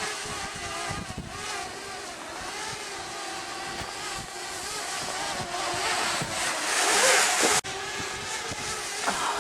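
Parrot Bebop quadcopter's propellers whining as it flies up, with wind buffeting the microphone. The wind swells loudest about seven seconds in, then the sound drops out for an instant.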